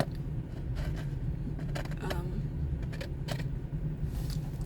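Steady low rumble with a few light clicks and taps scattered through it.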